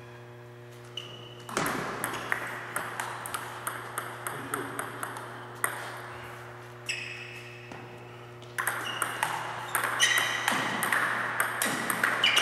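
Table tennis ball clicking off paddles and table in a rally, a few hits a second; it stops for a couple of seconds midway, then play picks up again at a quicker pace. A steady low hum sits underneath.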